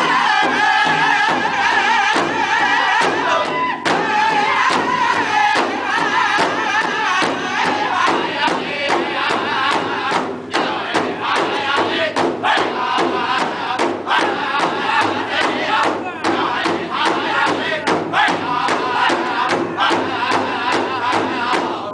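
A powwow drum group: several men singing loudly and high in unison while striking one large shared drum together in a steady beat.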